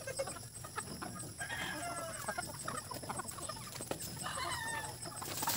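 Free-range native chickens clucking and calling, with two longer calls that glide down in pitch, about a second and a half in and again about four and a half seconds in.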